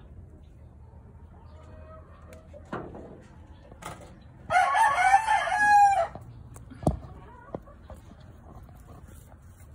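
A rooster crows once near the middle, a single call of about a second and a half that dips in pitch at the end and is by far the loudest sound. A couple of short soft knocks come before and after it.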